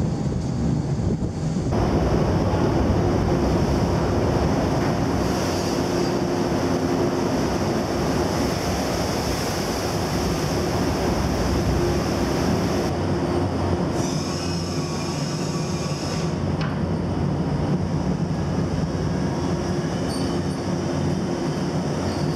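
Wind and sea at the stern for about two seconds. Then the steady drone of a ship's back-deck machinery, with a high whine coming and going, as the seismic airgun array is hauled aboard.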